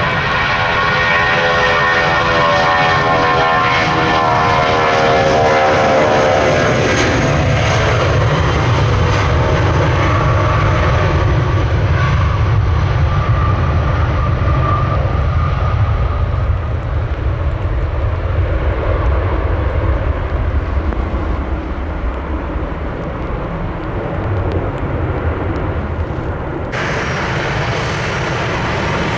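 Jet airliner passing close, its engine whine falling steadily in pitch over the first several seconds, then a loud, steady low rumble of jet engines.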